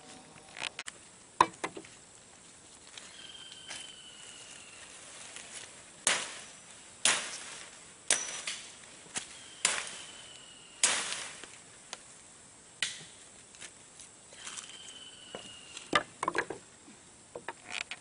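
Sharp chopping blows cutting green branches, about a dozen strikes at irregular intervals, most of them in the middle and again near the end. A faint whistled note that falls slightly sounds three times in the background.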